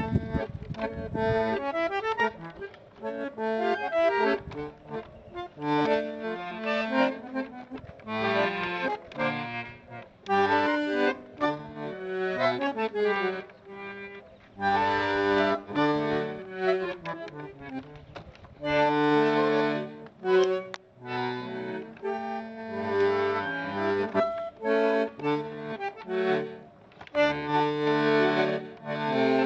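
Bandoneón played solo: held chords with a melody line over them, in phrases a few seconds long with brief pauses between.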